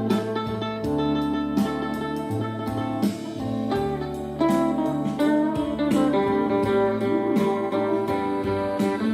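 Guitar-led instrumental passage of a song from the radio, played on a Grundig R35 receiver through Minerva RB6050 loudspeakers.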